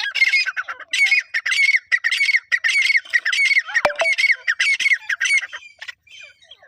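A partridge (teetar) calling: a fast run of repeated loud notes, about two to three a second, that turns to fainter calls near the end. A single sharp click about four seconds in.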